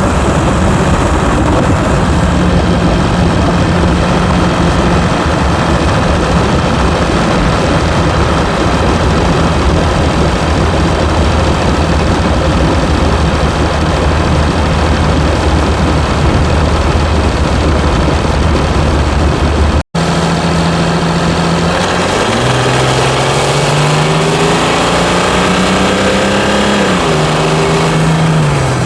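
Mercedes E320 CDI V6 diesel engine running at a steady low note, then after a brief cut in the sound its pitch climbs for several seconds as the car accelerates, drops once at a gear change, and starts climbing again near the end.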